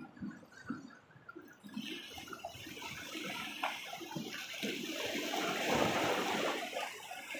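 Sea waves surging and washing over shore rocks: a rushing sound that swells from about two seconds in, is loudest around six seconds and eases off near the end, with a few soft knocks before it.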